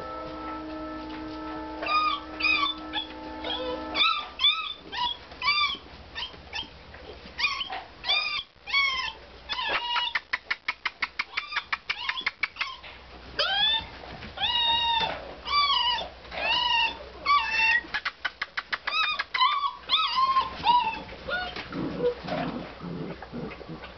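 Basset hound puppies whining and yelping, a rapid string of short, high-pitched calls that rise and fall, with lower, rougher whimpers near the end.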